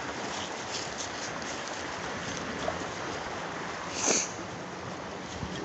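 Steady rustle of someone walking through dry leaf litter, with one short, sharp high-pitched sound about four seconds in.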